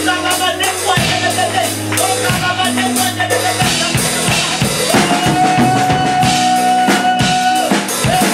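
Instrumental music with a drum kit playing a beat under sustained held notes, one long high note held through the second half.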